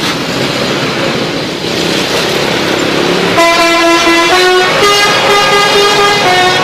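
Bus telolet horn, a multi-tone musical air horn, playing a tune of stepped notes from about halfway in. Before it, passing-vehicle noise.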